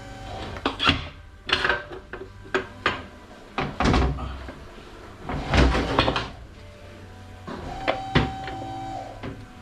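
Music playing in the background, with irregular sharp clanks and knocks from metal transmission parts being handled during a Ford AOD teardown.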